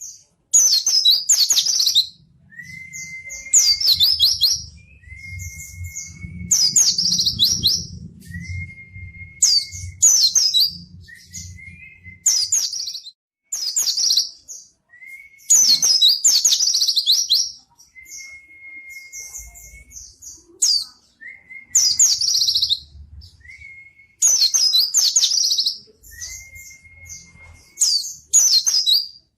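Pleci (white-eye) singing a repeated phrase about every two to three seconds: a thin, steady whistle, then a loud run of quick, high twittering notes.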